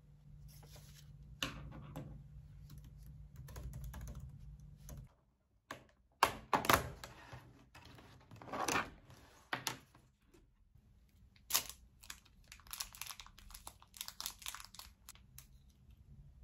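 Paper notes rustling and being handled on a desk over a steady low hum, which stops suddenly about five seconds in. Then a clear plastic takeaway sushi tray is set down and opened, its lid crackling and clicking in short irregular bursts, with rustles of packaging.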